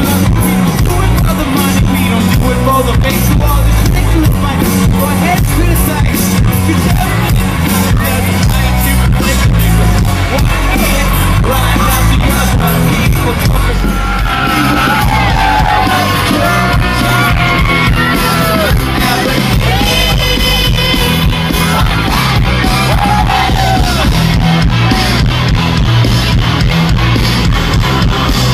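A rock band playing live and loud, heard from within the crowd: drums, bass and electric guitar with a lead singer's voice. The sung line stands out more clearly from about halfway through.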